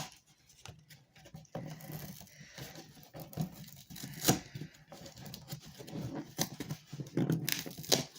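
Cardboard shipping box being torn open by hand: scattered scraping and rustling of the cardboard, with a few sharp rips, the loudest about four seconds in and two more near the end.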